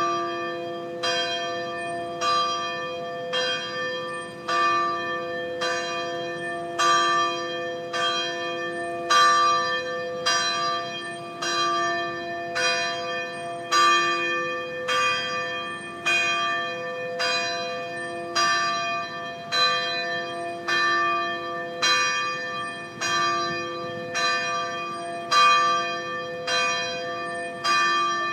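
A peal of church bells ringing continuously, each bell struck in turn about one and a half times a second, the tones ringing on and overlapping.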